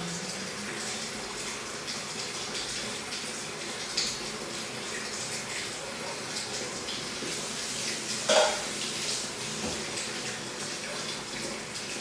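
Bathroom sink tap running into the basin, with water splashing throughout. There is a small click about four seconds in and a louder knock a little past eight seconds.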